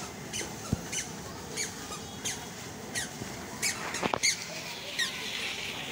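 Water from a hose spraying onto a motorcycle's rear wheel and exhaust, with a short high squeak that falls in pitch repeating about every two-thirds of a second and a couple of dull knocks.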